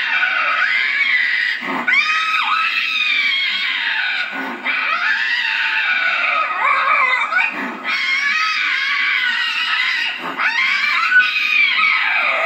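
Lynx screaming: about five long, wavering, high yowls in a row, each lasting two to three seconds, separated by brief breaks.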